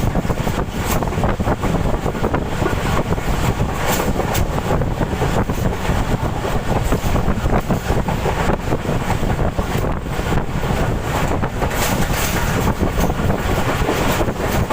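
Passenger train rolling slowly past at close range: a steady rumble with scattered clicks from the wheels, and wind buffeting the microphone.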